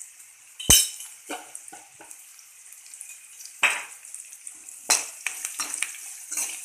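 Tempering of mustard seeds, dal, cashews, green chilli and curry leaves sizzling in hot oil in a kadai while it is stirred with a spoon. A steady sizzle, with the spoon knocking sharply on the pan about a second in, again twice in the middle, and a run of lighter clinks near the end.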